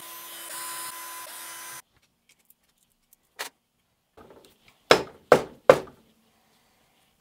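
Cordless drill-driver with a socket running at a steady speed, spinning out a bolt from a two-stroke motorcycle engine's crankcase; it stops abruptly about two seconds in. A few seconds later come a small click and then three sharp knocks in quick succession.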